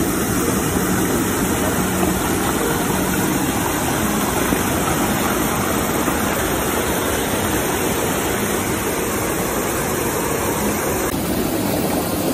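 River water pouring over and between boulders in small cascades: a steady, loud rush of white water close to the microphone.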